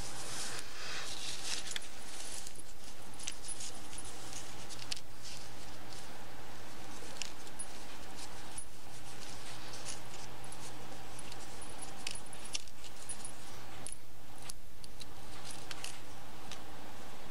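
Small steel balls and rings of a skateboard ball bearing clicking and rattling against each other as they are handled, with a quick run of clicks in the first couple of seconds and scattered light clicks after. A steady low hum runs underneath.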